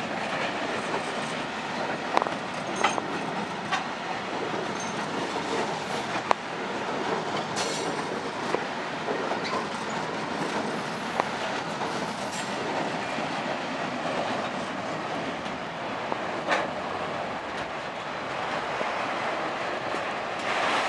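Long freight train rolling past: a steady rumble of steel wheels on rail, with sharp clicks now and then as the wheels pass over joints.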